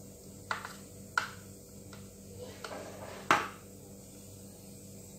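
Ceramic plates and bowls clinking against each other and the counter as salad vegetables are arranged on a serving platter: four or five separate knocks, the loudest a little after three seconds in.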